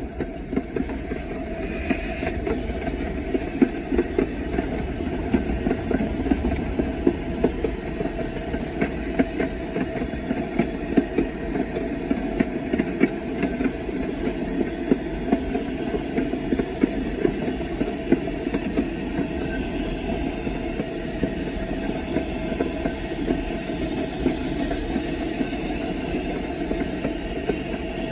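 Small steam locomotive under way, heard from its cab: a steady rumble of the train rolling, with irregular clicks and knocks from the wheels and running gear and a hiss of steam.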